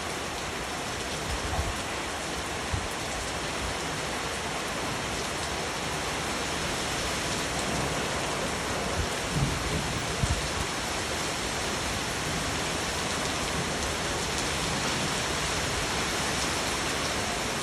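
Steady, even rain falling, with a few brief low thumps about a second and a half in and again around nine to ten seconds in.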